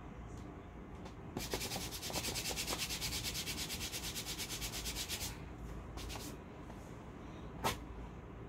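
A hair removal paper strip rubbed briskly back and forth over waxed skin on the leg, fast rhythmic scraping strokes for about four seconds. Near the end comes one short, sharp rip as the strip is pulled off.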